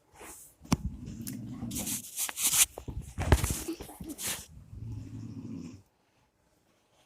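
An elderly woman snoring loudly: a low, rattling snore with hissing, snorting breaths mixed in, stopping about six seconds in.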